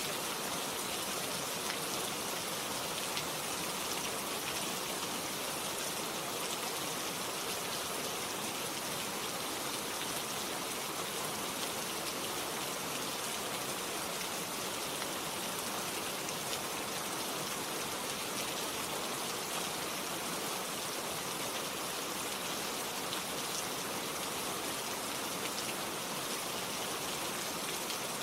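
Steady rain falling, a dense even hiss of drops with fine ticks of individual raindrops on a surface.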